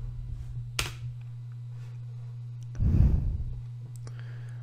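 Steady low electrical hum, with a sharp click a little under a second in and a short muffled thump about three seconds in.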